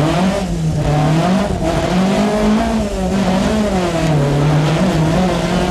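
Opel Manta 400 rally car's four-cylinder engine heard from inside the cabin, its revs rising and falling several times as the driver accelerates and lifts through the stage.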